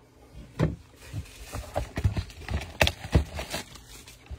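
Cardboard trading-card blaster box handled on a table: an irregular run of knocks, taps and scuffs as it is picked up, moved and set down.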